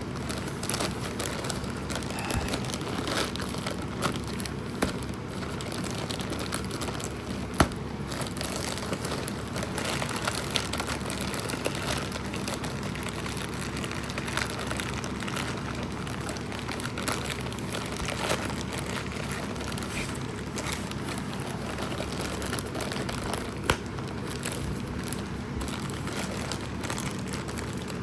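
Plastic packaging crinkling and rustling as it is handled and opened, with many small clicks and two sharper snaps about a third of the way in and near the end.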